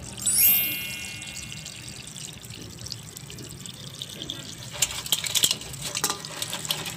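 Running water splashing, as from a kitchen tap, with a brief high ringing tone about half a second in and a run of sharp clicks and splashes around five to six seconds in.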